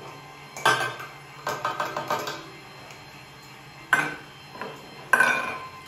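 Small stainless-steel prep bowls clinking against the steel mixing bowl and the counter as salt is tipped in and the bowl is set down: one sharp clink, a quick run of lighter taps, then two more sharp clinks.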